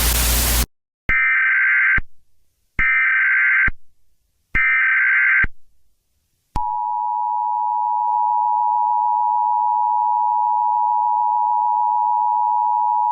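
Emergency Alert System broadcast tones. A burst of static cuts off, then come three short bursts of warbling digital header tones, each about a second long with a pause between. From about six and a half seconds in, the steady two-tone EAS attention signal is held.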